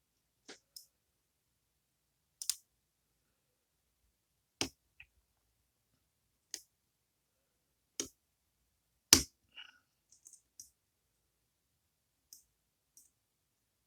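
Irregular sharp metallic clicks of lock-picking tools working the pins of a Goal Z pin-tumbler lock with spool pins, about a dozen clicks spread out, the loudest about nine seconds in.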